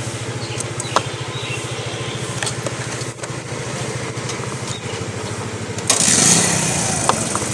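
Motorcycle engine running at low speed with a steady low pulsing beat and a few light clicks; about six seconds in, a sudden louder rush of noise sets in.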